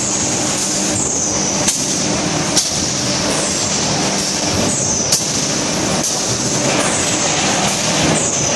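PS foam vacuum forming machine line running: a steady hum with a high hiss that sweeps down in pitch every second or two, and three sharp clacks.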